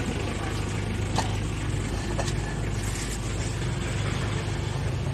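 A motor vehicle's engine idling close by, a steady low hum, with a few light sharp clicks or knocks over it.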